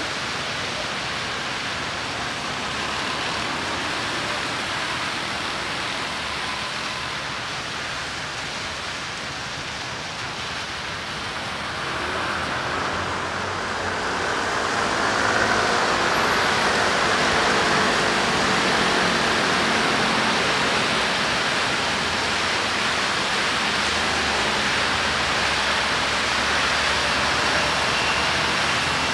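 Steady rain with city street and traffic noise, getting louder about twelve seconds in.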